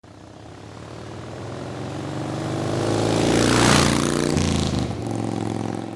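A motor vehicle drives past. Its engine and road noise build up to a peak about three and a half seconds in, then fade, dropping in pitch as it goes by.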